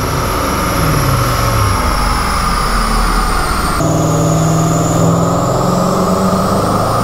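Twin-turbo Ford Mustang GT's 5.0 V8 running on a chassis dyno. Its pitch falls between about half a second and two seconds in as the revs drop; then, after an abrupt cut, it runs at a steadier, lower speed.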